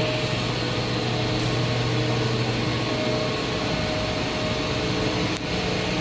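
Wire and cable extrusion line running at speed: a steady machine drone with a low hum and several steady tones over a constant noise.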